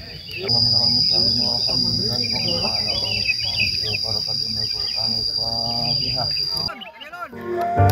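Steady high-pitched insect buzz, over a murmur of voices and scattered bird chirps. The buzz and voices cut off about seven seconds in, and flute music starts just before the end.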